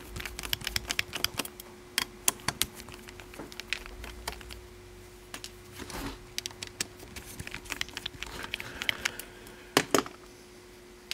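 Light irregular clicks and ticks of small screws being backed out of the sheet-metal plate of a Ford six-disc CD changer mechanism, with metal parts tapping as they are handled. A louder click comes near the end, over a faint steady hum.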